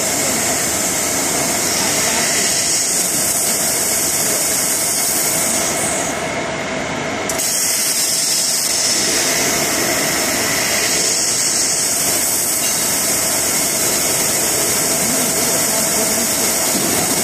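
CNC gantry cutting machine's torch cutting steel plate: a steady, loud hiss that dips briefly about six seconds in.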